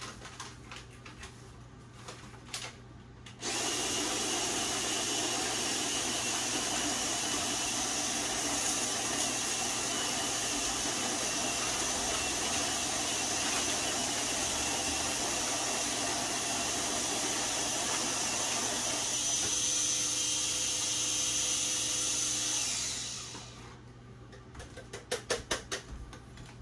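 Electric coffee grinder grinding whole coffee beans: a steady motor whir that starts abruptly about three and a half seconds in, runs for about twenty seconds and winds down near the end. A few light clicks of handling come before and after it.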